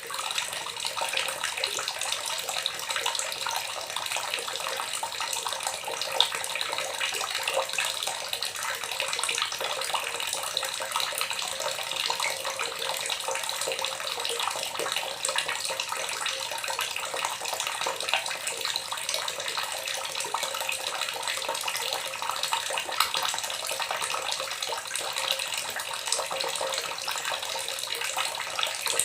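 Water gurgling steadily, a continuous run of small splashes and bubbles with no deep rumble.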